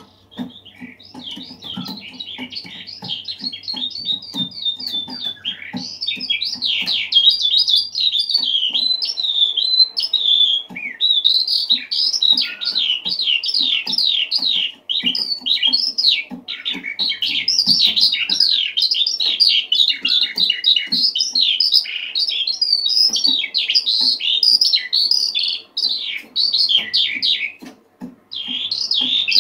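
Eurasian skylark singing: a long, fast, unbroken stream of warbled trills and chirps, pausing briefly a few times.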